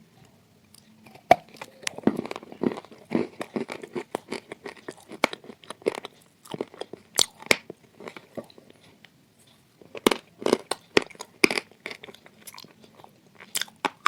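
Close-up biting and chewing of crunchy dry edible clay: sharp snapping bites at irregular intervals with crumbly munching between them, and a short lull a little past halfway.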